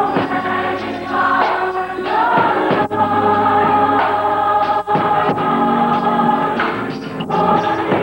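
Gospel choir singing, many voices holding long notes together.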